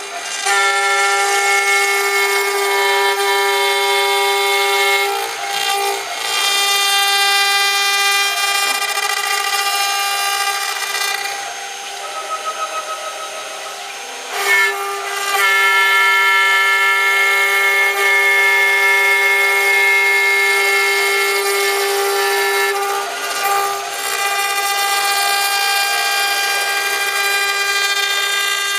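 The 1.5 kW spindle of a CNC router runs at high speed while its bit cuts shallow curved grooves into a fibreboard sheet. It makes a loud, steady high-pitched whine with many overtones. The tone wavers and changes for a moment about five seconds in, for a few seconds in the middle, and once more near the end.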